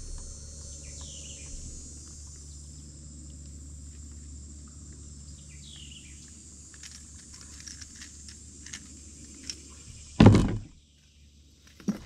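Scattered light clicks and handling noises as a spotted bass is unhooked by hand from a crankbait, over a steady low rumble. A single loud thump comes just after ten seconds in, and the rumble stops right after it.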